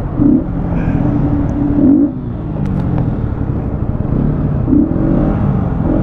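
Bajaj Pulsar NS200's 199.5cc liquid-cooled single-cylinder engine idling at a standstill, revved briefly three times, with a few light clicks about halfway through.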